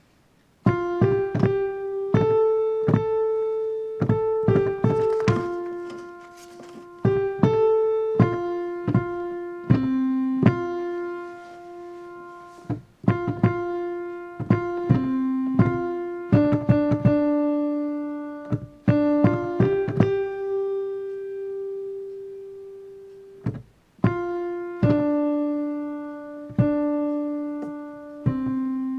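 Piano playing a slow melody line with chords, struck notes ringing and fading in phrases, with a brief break about two-thirds through and a held low note near the end.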